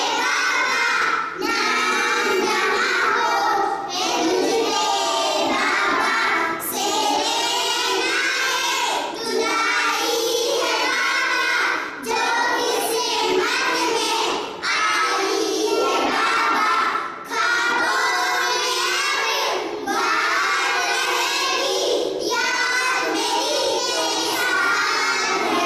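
Children singing a song, phrase after phrase, each phrase lasting two or three seconds with brief breaths between.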